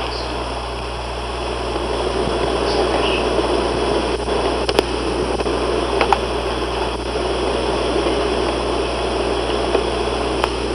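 Steady hiss and low hum of a ghost-hunting EVP (psicofonía) field recording with no voice clearly heard, broken by two faint clicks about five and six seconds in.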